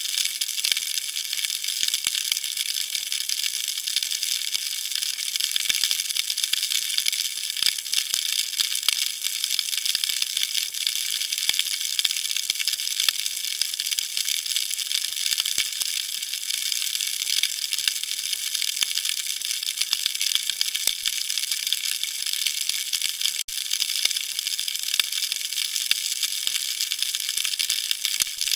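Underwater crackle of countless fine, rapid clicks with a high hiss, steady throughout: the typical snapping-shrimp chorus of shallow tropical sea water.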